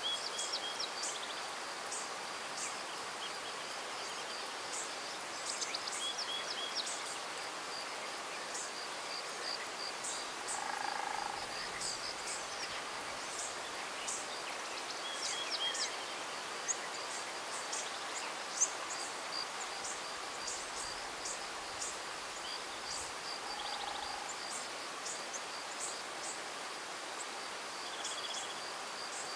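Spring hillside ambience: insects keep up a steady high-pitched trill, while birds give many short, scattered high chirps and a few brief whistled notes over a soft breeze.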